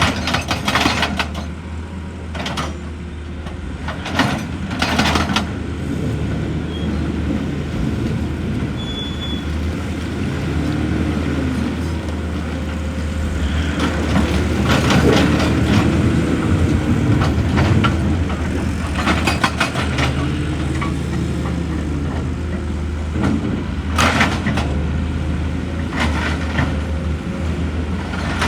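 Excavator's heavy diesel engine running under varying load, its pitch rising and falling as the hydraulics work, with short bursts of rock clattering and knocking every few seconds.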